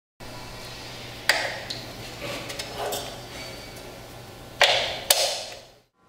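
Metal parts of a concrete saw's blade guard being handled and fitted by hand: three sharp, ringing metallic clicks, about a second in and twice near the end, with softer clatter between.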